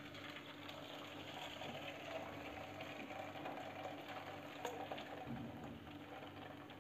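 Boiled horse gram dal and its cooking water being poured from a steel pot through a fine stainless-steel mesh strainer into a bowl: a faint, steady trickle and splash of draining liquid, with a few light metal clicks.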